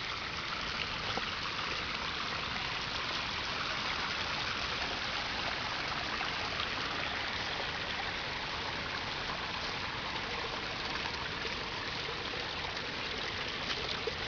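Water running steadily over rocks in a man-made garden stream and waterfall at its normal flow.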